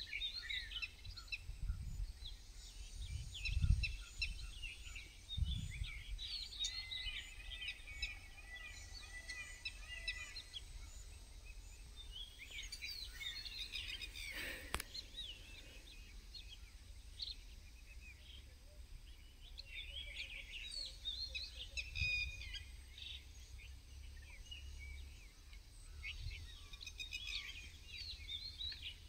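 Several wild birds chirping and calling, with many short, high notes and a few held whistles. Low thumps come in the first few seconds and a single sharp click about halfway.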